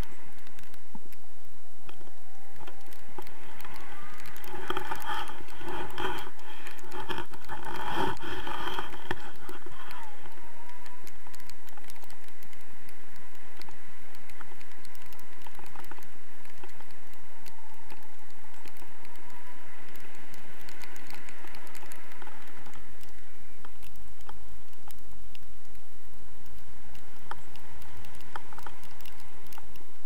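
Wind buffeting an action camera's microphone in flight, a steady rushing noise with fine crackle.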